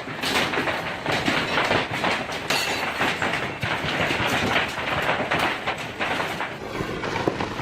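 Hailstones pounding hard surfaces in a heavy hailstorm: a dense, continuous clatter of many rapid, irregular impacts.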